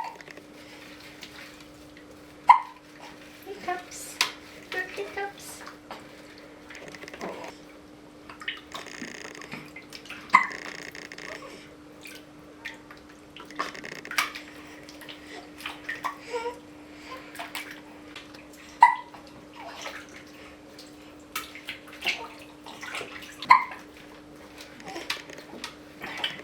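A newborn baby hiccupping in bath water: short, sharp hics every few seconds, about six in all, over soft water sloshing and small splashes.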